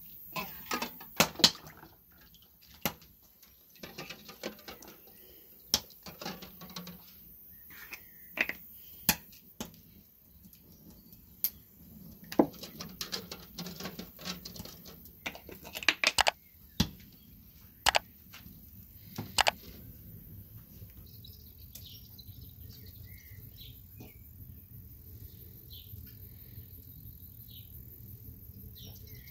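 Balls of dough being handled between bowls, one of them steel: a string of sharp clicks, knocks and wet slaps for about the first twenty seconds. After that come faint bird chirps over a low steady hum.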